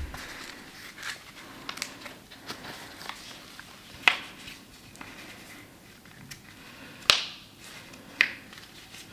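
Handling noises from a Spider-Man costume being put on and adjusted: soft fabric rustling with small clicks, and three sharper clicks or taps, about four, seven and eight seconds in.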